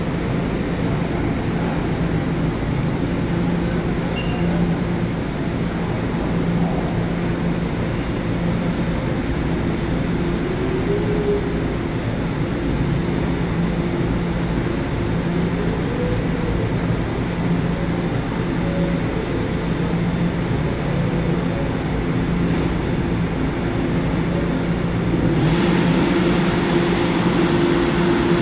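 R211 subway train standing at the platform, its on-board equipment giving a steady hum with a few faint rising whines. A little before the end a broader rushing noise comes in and the sound gets slightly louder.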